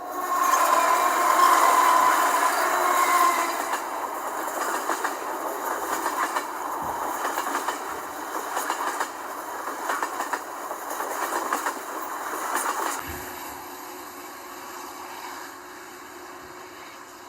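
Diesel train sounding its horn in a held chord for about three seconds. The cars then roll past with a rhythmic clickety-clack of wheels over the rail joints. The loud passing noise cuts off suddenly about 13 seconds in, leaving a fainter steady rumble.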